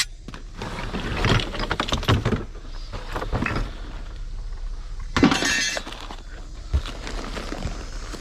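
Hard items being rummaged through and moved in a curbside junk pile: a run of clattering and clinking, then a louder crash a little past the middle and a single knock after it.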